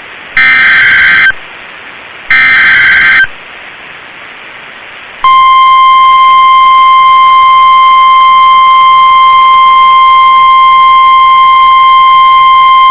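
Emergency Alert System signal on NOAA Weather Radio. Two bursts of SAME digital header data, each about a second long and a second apart, are followed about five seconds in by the 1050 Hz weather radio alert tone, one steady unbroken tone. Together they announce an incoming weather alert.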